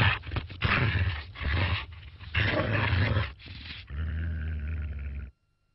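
Deep, rough dog barks, about four in a row, then a longer held steady sound that cuts off suddenly.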